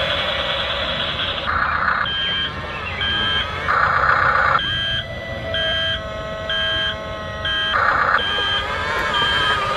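Electronic reversing beeps from an RC construction machine's sound unit, a high beep repeating about once a second over a steady electronic engine sound.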